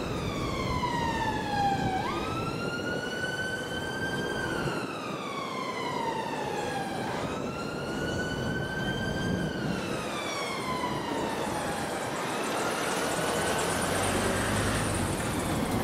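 Emergency vehicle siren wailing: its pitch climbs and then slides slowly down again, cycling about every five seconds, and fades out near the end. Steady background noise grows a little louder toward the end.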